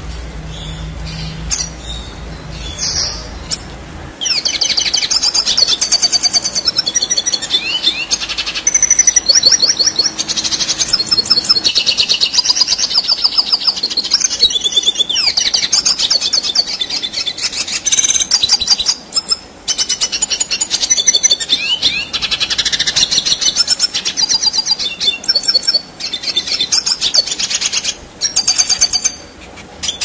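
Red siskin singing a long, rapid, twittering song of fast trills and chatter, starting about four seconds in and going on with a few brief pauses. A low hum fills the first few seconds before the song.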